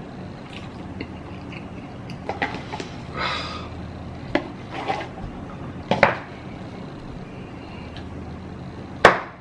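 Chopsticks clicking and scraping against empty paper instant-noodle cups as the cups are handled and nested together, with a sharp knock near the end, over a steady low hum.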